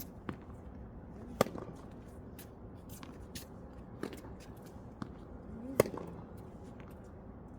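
Tennis balls being struck with racquets during a drill: several sharp hits a second or more apart, two of them loudest, with fainter ticks between.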